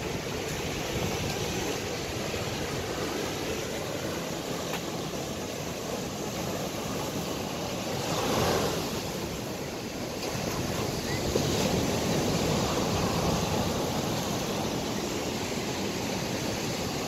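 Ocean surf washing onto the shore as a steady rush, with one wave swelling up about eight seconds in and the surf running louder again a few seconds later.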